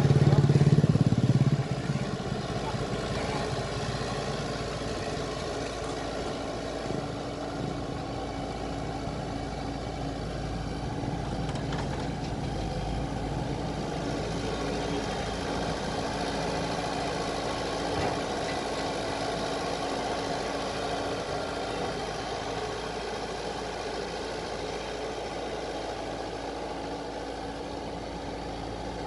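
A motorcycle passes close by, loudest in the first second and a half. After it, a steady diesel engine sound from the Komatsu PC78US-6 excavator and the dump truck beside it, running evenly with no revving.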